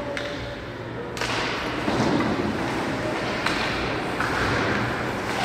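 Ice hockey play in an echoing arena: a few sharp knocks of stick and puck, the loudest about a second in, over steady rink noise.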